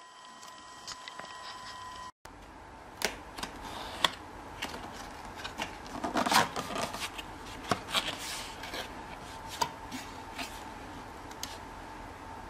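Cardboard subwoofer box being handled and opened: flaps and panels rubbing and scraping, with scattered clicks and taps. The loudest rustle comes about six seconds in.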